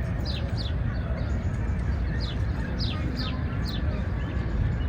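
Small songbirds chirping in short, quick falling notes, often in pairs, a few times a second, over a steady low hum of city noise.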